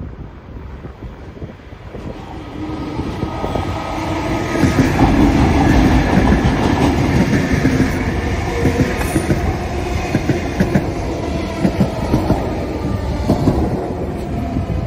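Comeng electric multiple unit passing at close range, its wheels clattering over the rails. It builds up over the first few seconds to its loudest about five seconds in, then stays loud as the carriages go by.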